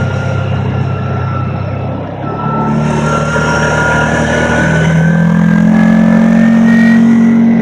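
ATV engine running under way. It eases off about two seconds in, then accelerates, getting louder with a steadily rising pitch.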